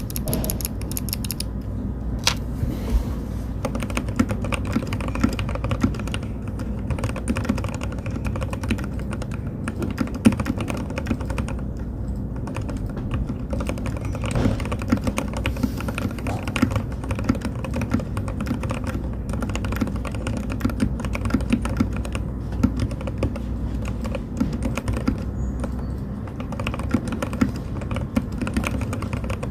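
Continuous fast typing on a mechanical keyboard fitted with linear hybrid switches made from C3 Kiwi and Jwick Yellow switch parts: a dense, unbroken run of keystroke clicks with a fairly deep sound.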